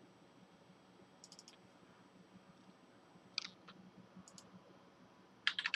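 Computer mouse clicks and keyboard keystrokes: a few scattered clicks, then a quick run of louder keystrokes near the end.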